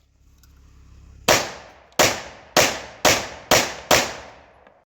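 Six pistol shots fired in quick succession, a Bill drill string: the first comes about a second in and the rest follow roughly half a second apart, each with a short ringing tail.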